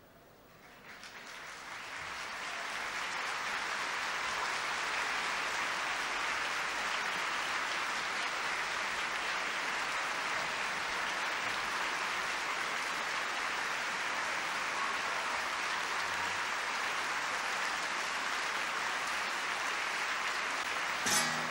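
Large concert-hall audience applauding, the clapping swelling up over the first few seconds and then holding steady. Near the end an acoustic guitar is plucked as the playing begins.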